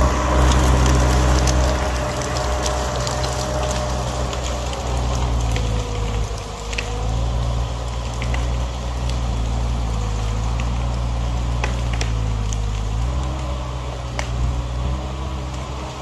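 Vermeer S725 mini skid steer running steadily, its engine pitch dipping and recovering a few times, with scattered sharp cracks of branches and brush snapping under the machine.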